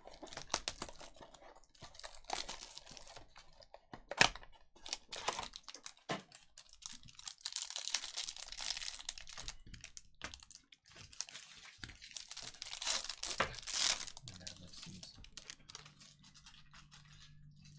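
A trading-card box and a plastic card-pack wrapper being handled and torn open by hand: scattered clicks and taps, a sharp snap about four seconds in, and two long stretches of tearing, crinkling rustle in the middle.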